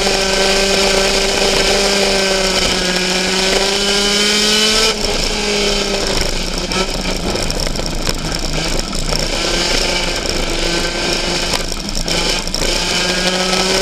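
Race car engine heard from inside the cockpit, running steadily with its pitch creeping up, then easing off suddenly about five seconds in and carrying on at a lower, steady pitch.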